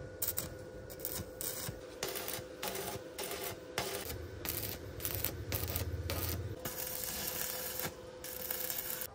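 Irregular metallic scraping and rubbing, metal on metal, with uneven strokes from the iron of a door being worked into place.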